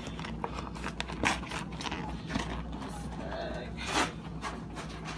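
Cardboard box of frozen bone-in chicken wings being torn and pried open by hand: scraping and tearing of cardboard with scattered clicks, and a louder knock about four seconds in.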